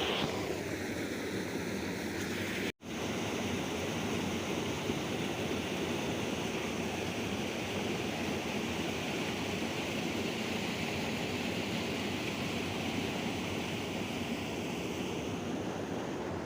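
Steady rushing of flowing river water, cut off for an instant about three seconds in.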